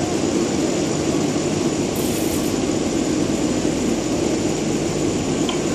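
Steady, even rumble of the Trieste–Opicina tram running along the funicular section of its line, with no rise or fall in level.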